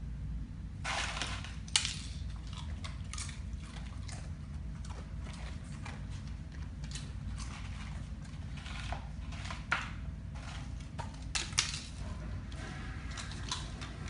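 Siberian husky crunching nacho chips off the floor: an irregular run of crisp crunches and cracks, a few sharper than the rest, over a low steady hum.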